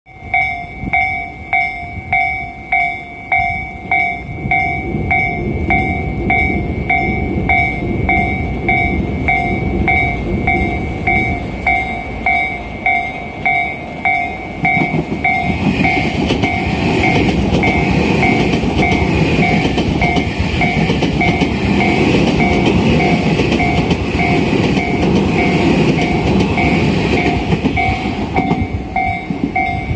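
Japanese level-crossing warning bell ringing steadily at about two strikes a second. Over it, a Tobu 50050-series electric train runs through the crossing at speed without stopping, its rumble building loudly from about halfway in.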